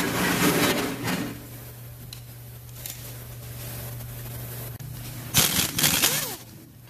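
Two bursts of scraping and rustling handling noise, each about a second long, one at the start and one near the end, over a steady low hum.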